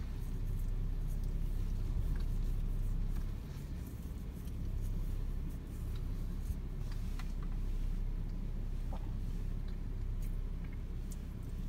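Hurricane wind gusting and buffeting the microphone with a low rumble that swells and eases every few seconds, with a few faint ticks and rustles over it.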